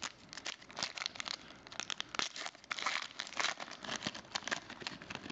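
Plastic trading-card pack wrapper crinkling in the hands as it is opened, a run of irregular crackles throughout.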